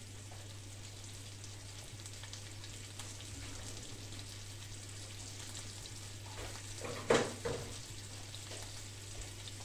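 Food frying in butter and olive oil in a pan, a steady sizzle, with a single short knock about seven seconds in.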